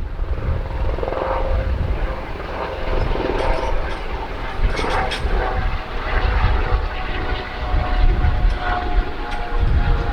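Boeing 767 jet airliner's turbofan engines running with a steady roar and a few held tones, with gusting wind buffeting the microphone.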